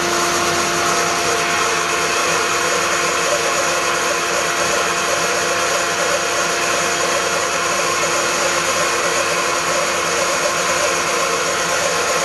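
Pillar drill running with a 15 mm Forstner bit boring into a composite decking pad, with dust extraction sucking at the cut. A steady hum over an even rushing noise.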